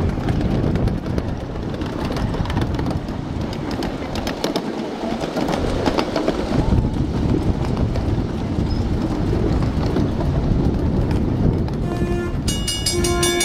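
A 7½-inch gauge ride-on miniature train running along its track: a steady rumble of the small wheels on the rails, with quick clicking over the rail joints. Near the end, steady bell-like ringing tones join in.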